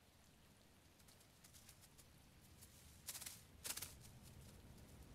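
Faint, scattered patter and rustling, with two short louder rustles a little after three seconds in.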